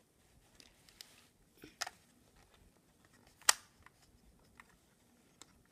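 Plastic clicks and knocks from a Power Trains Auto Loader City toy loader being worked by hand: a few light clicks, with one sharp click about three and a half seconds in.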